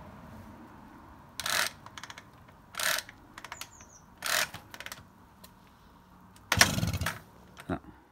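Honda Express NC50 moped's 49cc two-stroke engine being pedal-started without catching: five short bursts about a second and a half apart as it turns over, with small clicks between. The longest and loudest attempt comes about six and a half seconds in.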